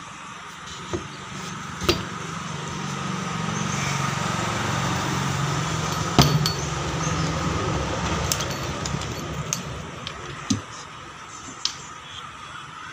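Sharp knocks and clinks as a plywood cabinet door is handled and opened, the keys hanging in its lock rattling; the loudest knock comes about six seconds in, with a few lighter ones after. A low background rumble swells and fades through the middle.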